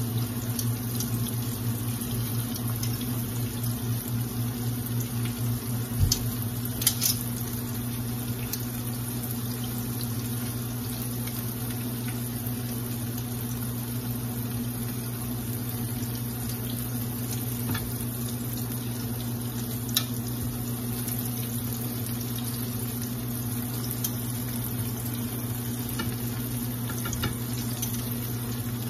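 Battered onion rings deep-frying in hot oil in a cast-iron skillet: a steady bubbling sizzle, with a few clicks of metal tongs against the pan as the rings are turned. A steady low hum runs underneath.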